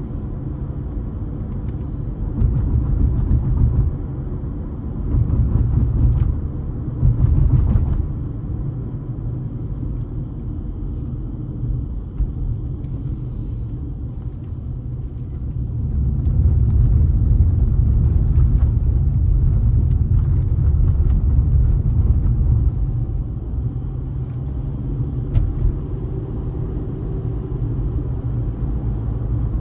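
Car driving on the road: a continuous low rumble of tyres and engine that swells louder for stretches, longest for several seconds just past the middle.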